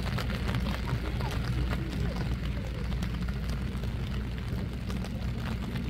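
Outdoor ambience of a football match in play: a steady low rumble with faint, distant shouts of players.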